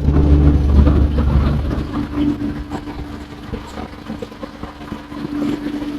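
A vehicle engine running: a low rumble under a steady hum, heaviest in the first two seconds, then easing off.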